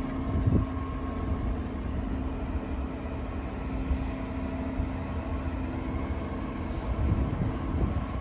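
A diesel train's engine running steadily, a constant hum over a low rumble.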